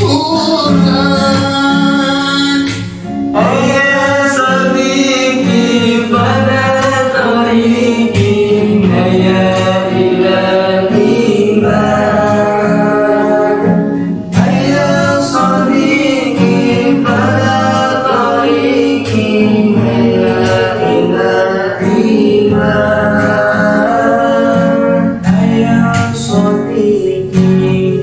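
Sholawat, an Islamic devotional song, sung over a darbuka hand drum; the drum's sharp strokes run under the sung melody.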